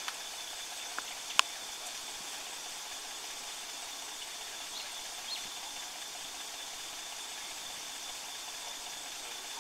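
Steady outdoor bush ambience: an even hiss with a constant high, thin whine, and a few sharp clicks, the loudest about a second and a half in.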